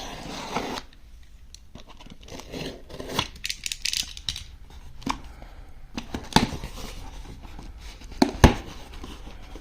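Product packaging being torn and rubbed open by hand, in rustling, scratching stretches, followed by a few sharp knocks of the box being handled, the loudest near the end.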